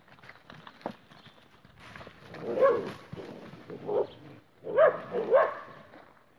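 Light knocks of hooves on dirt, then four short, loud animal calls with an arched pitch, starting about two and a half seconds in.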